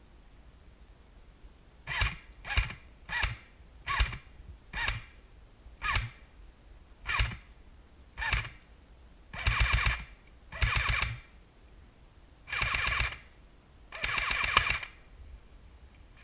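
Airsoft gun firing: about eight short shots spaced half a second to a second apart, then four full-auto bursts of under a second each, the rapid shots in them running together.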